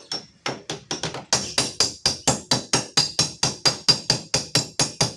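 Rapid, even hammer taps on the sheet-metal door panel of a Honda Brio, about six strikes a second with a bright metallic ring, briefly pausing just after the start: the dent is being tapped out.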